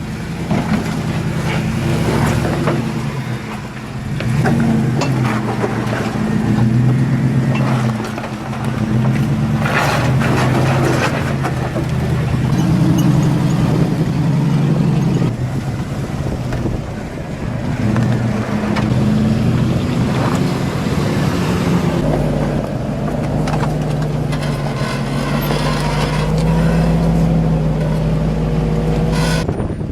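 Jeep engine running at low revs while rock crawling, its loudness easing off and picking up again every few seconds, with a few sharp knocks about ten seconds in.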